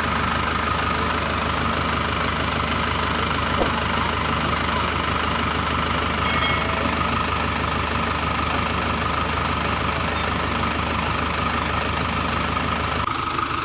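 Tractor engine sound running steadily at idle, with a steady low hum and a higher whine, changing abruptly near the end.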